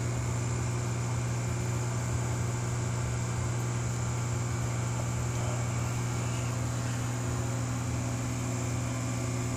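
Aquarium pumps and filters running: a steady low hum with a faint hiss.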